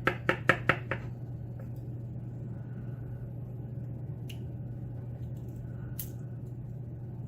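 A quick run of about six light clicks in the first second, then a steady low hum with two faint ticks later on: small lock pins and tools being handled while a pin-tumbler lock is taken apart.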